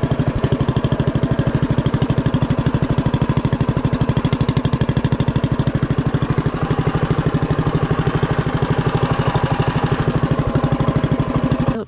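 Predator 212 single-cylinder four-stroke engine with a freshly fitted stock camshaft running steadily and warming up after a hard start, its exhaust beating in rapid even pulses. The sound cuts off suddenly near the end.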